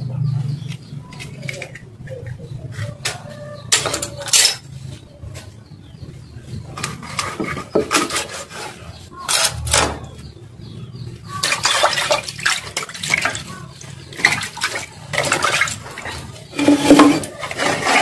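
Knife scraping and cutting small pompano on a wooden chopping block, with scattered clicks and knocks as the fish are gutted by hand. In the second half, water sloshing and splashing as the cleaned fish are washed by hand in a bucket.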